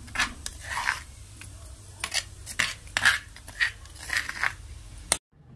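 Steel spoon scraping wet ground chutney paste out of a stone grinding mortar, in short repeated scrapes with light metallic clinks. It cuts off suddenly near the end.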